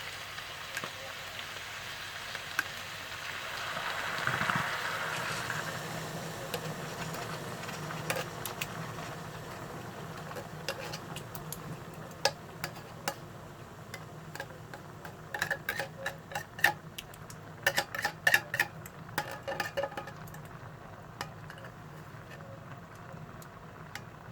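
Vegetables and coconut milk sizzling in a pot while a spoon stirs them, with a quick run of clinks and knocks against the pot about two-thirds of the way through.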